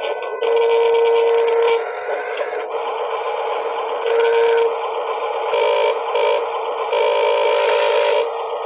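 Electronic toy sound effects: a held beep-like tone switching on and off, with a warbling tone twice later on, over a steady bed of other tones.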